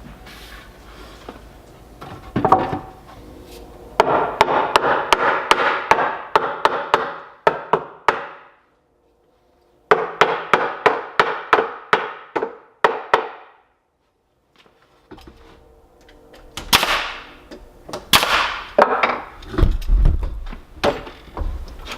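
Hammer striking wood: quick runs of blows, about five a second, driving 2x12 boards into place in a workbench frame. The hammering breaks off abruptly twice.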